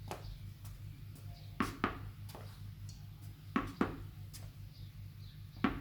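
A tennis ball bounced on a hard floor and caught, making short paired knocks about every two seconds, over a steady low hum.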